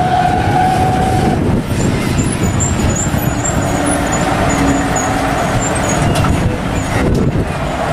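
Heavy tow truck's engine running as it tows a bus along the road, with a continuous traffic rumble. A steady high tone sounds for the first second and a half or so.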